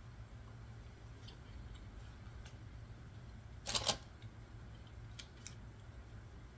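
A person chewing a bite of steak: faint scattered mouth clicks over a low steady hum, with one short, louder mouth sound just under four seconds in.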